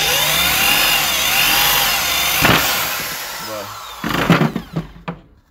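Cordless drill with an 8 mm bit boring through the plastic of a Gloria FoamMaster FM10 foam sprayer, its motor speed wavering up and down, with the plastic melting around the bit rather than cutting cleanly. The drill runs down about three and a half seconds in, followed by a few knocks as the drill and sprayer are handled.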